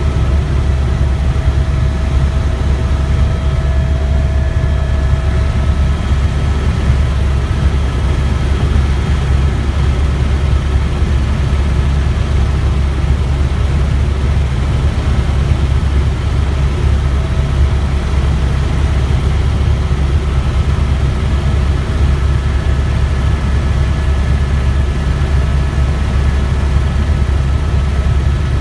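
Tour helicopter's engine and rotor heard from inside the cabin in flight: a loud, steady low drone with faint steady whining tones above it.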